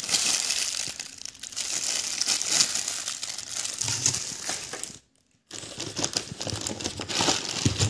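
Clear plastic packaging crinkling as it is handled, with a half-second break about five seconds in.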